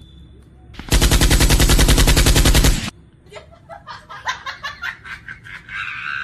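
A loud burst of rapid-fire cracks, like a machine-gun, lasting about two seconds and starting about a second in. It is followed by a run of quieter, irregular clicks.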